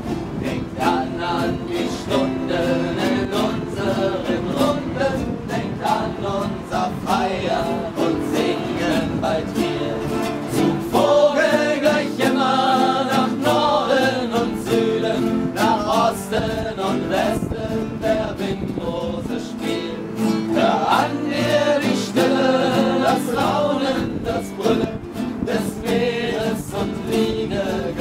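Several acoustic guitars strumming a folk song, with a group of voices singing along, loudest in two stretches through the middle.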